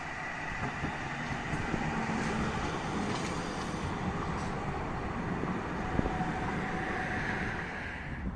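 Tram passing close beneath on its tracks: steady rolling noise with a thin high whine from its electric drive that grows louder near the end, and a single sharp click about six seconds in.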